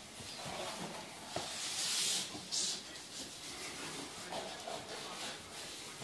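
A floor duster sweeping across a hardwood floor, two short hissing swishes about two seconds in, with a couple of light knocks before them.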